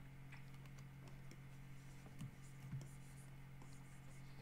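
Faint scratching and light taps of a stylus on a graphics tablet during digital sculpting, over a steady low hum.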